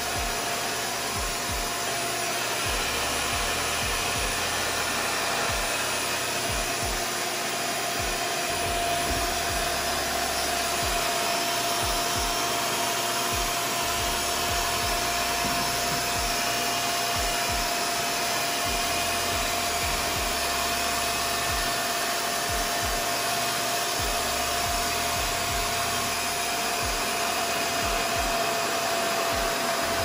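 RevAir reverse hair dryer running steadily, drawing air and hair into its suction wand like a vacuum cleaner: an even whooshing rush with a steady whine.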